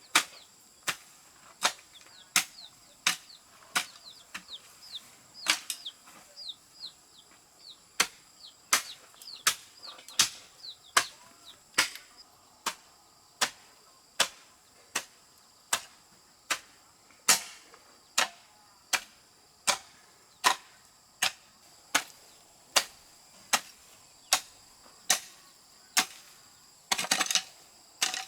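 Steady chopping, one sharp blow about every three-quarters of a second, with a quick rattle of several hits near the end.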